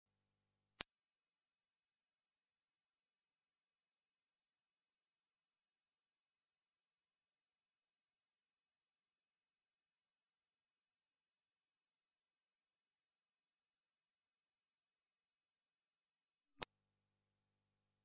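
Dog whistle sound effect: one steady, very high-pitched pure tone held without change for about 16 seconds, starting just under a second in and cutting off sharply.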